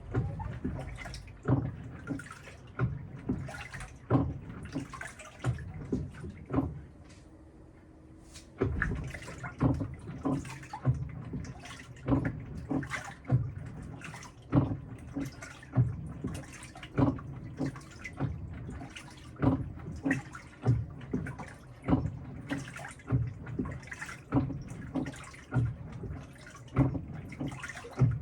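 Panasonic top-loading washing machine agitating a load, water and laundry sloshing in the tub in rhythmic surges about once a second. The surges pause briefly about seven seconds in, leaving a faint hum.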